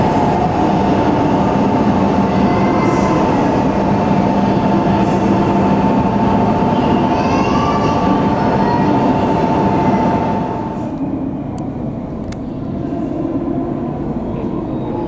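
E8 series Shinkansen train pulling out of a station: loud running noise with a steady two-note motor whine and a few brief gliding higher tones. About ten seconds in, the sound drops sharply to much quieter platform ambience with a few sharp clicks.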